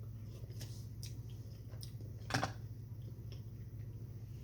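Faint chewing and mouth clicks of someone eating a boiled potato, over a steady low hum. One smack about two seconds in is a little more distinct than the rest.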